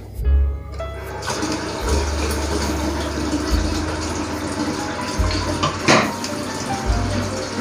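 Water running steadily with a rushing hiss, with a brief sharp clatter about six seconds in.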